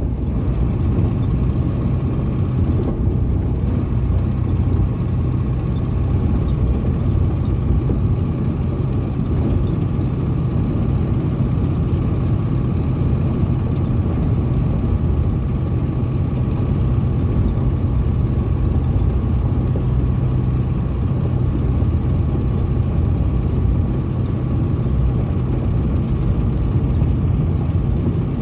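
A Ford Cargo 712 light truck's diesel engine running at a steady, even speed on the highway, with the rush of road noise under it.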